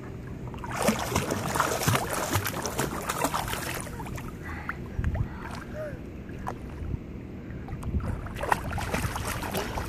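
Pool water splashing as a small child paddles with her arms and kicks her legs. There are two spells of splashing: one starting about a second in and lasting about three seconds, and another near the end.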